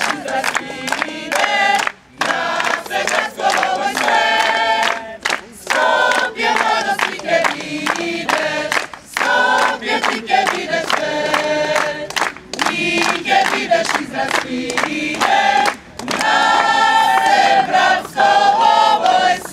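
A mixed choir of men and women singing together in chorus, with longer held notes near the end.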